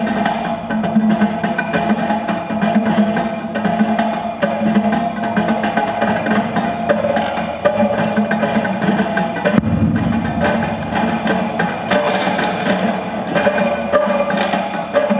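Prepared acoustic guitar laid flat and amplified, its strings tapped and struck by hand with objects wedged between them: dense, rapid knocks and rattles over a steady low drone, with a low thud about ten seconds in.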